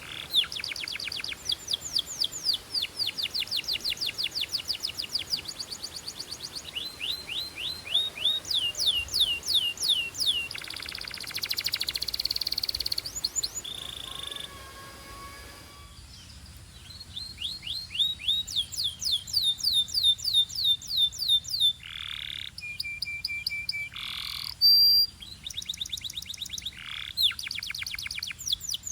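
Canary song: fast trills of rapidly repeated high, down-sweeping notes in several runs, with a harsher buzzing stretch in the middle and a few longer sweeping calls and a short held whistle later on.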